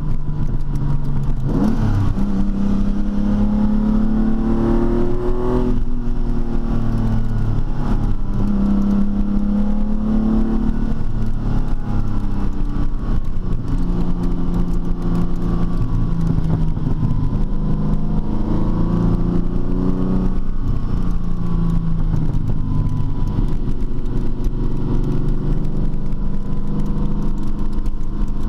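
TVR T350's straight-six engine running, its pitch rising and falling several times as the revs go up and come back down.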